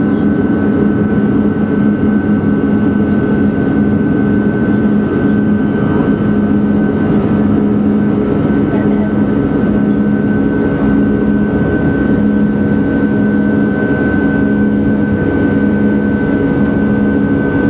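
Cabin noise of an Airbus A321-211 rolling on the ground at taxi speed: its jet engines running steadily, with a constant high whine over a low hum and the rumble of the airframe.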